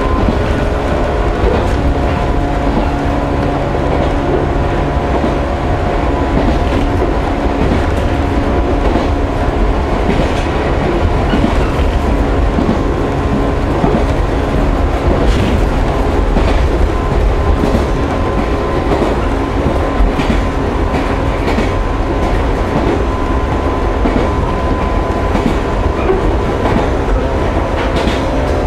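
Onboard running sound of a JR 115 series electric train (KuMoHa 115-501) at a steady speed: the MT54 traction motors and gears hum with a few steady tones, and the wheels click over rail joints now and then.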